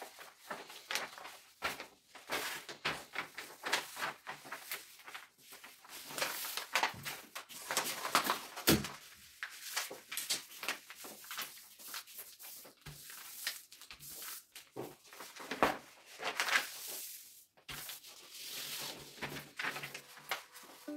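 Large sheets of paper rustling, sliding and creasing on a tabletop as hands fold and smooth them down: irregular scrapes and crackles, with a few sharper taps, the loudest about halfway through.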